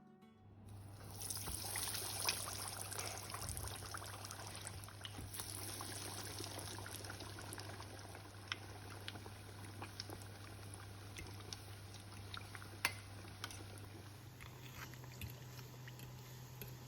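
Breaded chicken Kiev cutlets frying in deep hot vegetable oil: a steady sizzle with scattered crackles and pops that starts about a second in and slowly eases.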